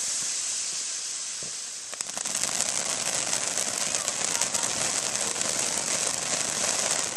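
Firework hissing steadily. About two seconds in, a dense rapid crackling joins the hiss and keeps on.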